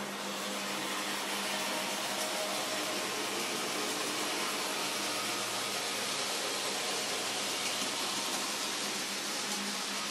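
N-gauge model trains running on the layout: a steady whirring hiss of small locomotive motors and wheels on track that swells over the first couple of seconds and then holds.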